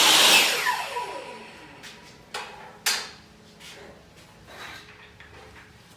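Table saw switched off and spinning down, its motor pitch falling away over about a second and a half. Then a few sharp knocks as cut cedar pieces are handled and set down.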